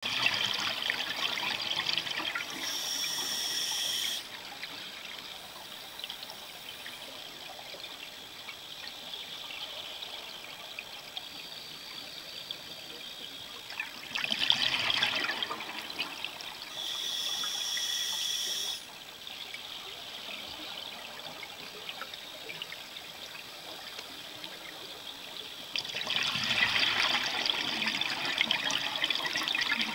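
Scuba diver breathing through a regulator underwater: a burst of bubbling exhaled air, then a steady hiss of inhaling through the regulator, repeated slowly, about three breaths, with a quieter water hiss between them.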